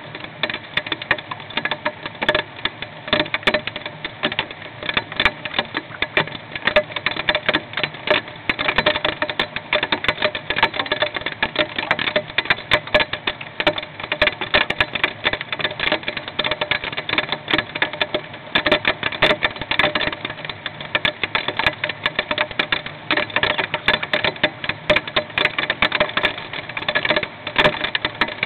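Hail hitting a nest box, heard from inside the box: a loud, dense, unbroken stream of sharp ticks and clicks.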